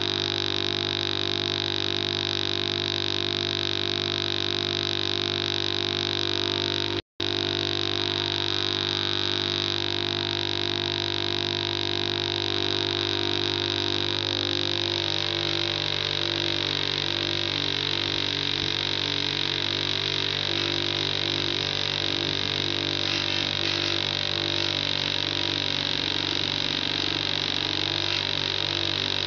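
Bench grinder running with a steady hum and high whine while an engine valve from a Harley-Davidson Evo Sportster head is held against the spinning wheel. The sound cuts out for an instant about seven seconds in and turns grittier from about halfway.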